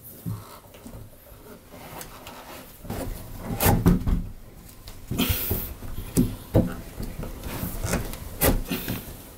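Steel rod being pushed and worked through a drilled hole in a timber beam, scraping against the wood with a few sharp knocks, irregular and loudest around the middle and near the end.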